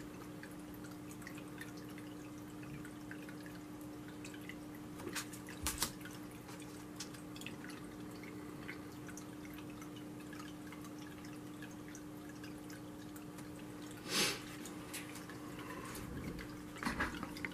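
Small tabletop water fountain trickling and dripping into its pebble-filled bowl, over a low steady hum, with a couple of brief rustles.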